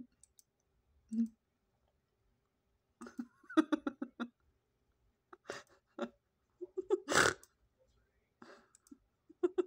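Plastic DVD and Blu-ray cases clacking and clattering in irregular bursts as they are handled and pulled out of a shelf, heard through computer speakers; a quick run of clacks about three and a half seconds in and a louder sudden one about seven seconds in.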